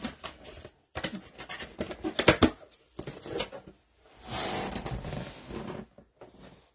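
Handling sounds from a trading-card box and its packs: scattered clicks and knocks, a sharp clatter a little past two seconds in, then about a second and a half of rustling.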